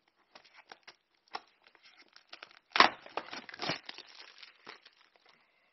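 Clear plastic shrink-wrap being torn open and pulled off a small cardboard box: scattered crinkles, with a louder rip about halfway through.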